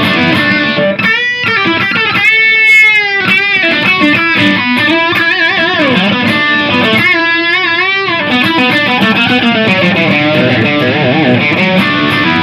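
Distorted electric guitar played through the Lekato Tank G's Marshall JCM 800 amp model: a continuous phrase with held notes that are bent and shaken with vibrato.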